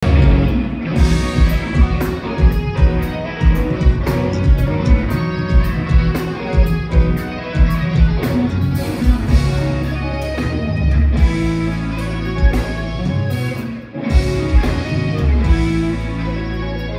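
A rock band playing live and instrumental: interlocking electric guitar lines over bass guitar and a drum kit keeping a steady beat. About three quarters of the way through, the music drops away for a moment, then comes straight back in.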